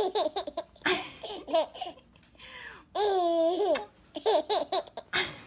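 Baby laughing in short, quick bursts of giggles, with one longer drawn-out squeal about three seconds in.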